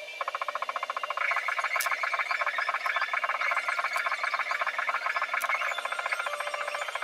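Background music: a fast, evenly pulsed buzzing trill with a few held notes and occasional sharp clicks, starting just after the beginning.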